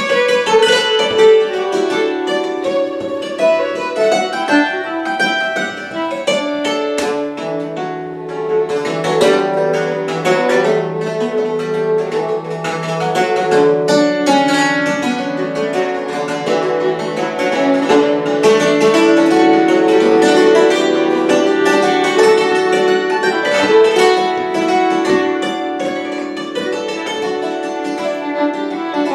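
Hammered dulcimer and fiddle playing a lively folk tune together: quick hammered strikes on the dulcimer strings ring on under the bowed fiddle.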